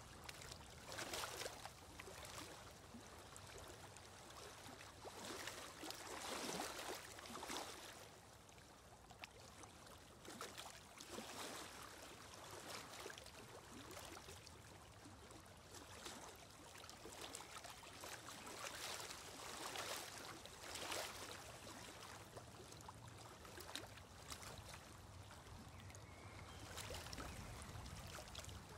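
Faint background sound of running water, swelling a little every few seconds.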